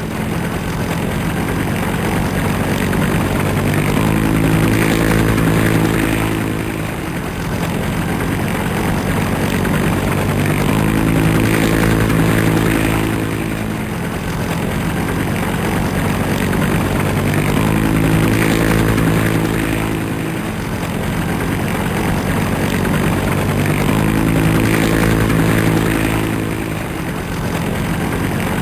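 Helicopter running steadily, its engine and rotor drone swelling and easing about every six to seven seconds.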